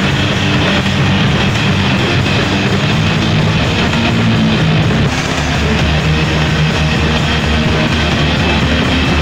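Live D-beat punk band playing loud: distorted electric guitar over drum kit and crashing cymbals, without a break.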